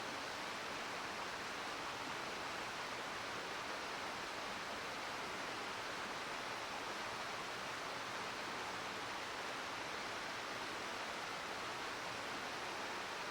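Steady rushing murmur of a mountain river flowing over rocks, even and unchanging throughout.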